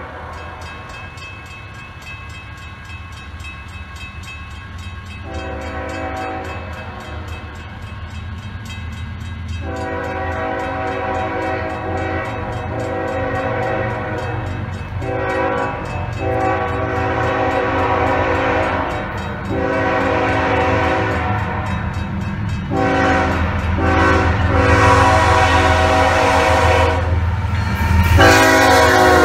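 Nathan Airchime K5HL-R2 five-chime horn on a CSX GE ES44AH locomotive sounding, first about five seconds in, then in a string of long and short blasts. Under it the diesel locomotives' rumble grows steadily louder as the train approaches, loudest as the lead engine passes near the end.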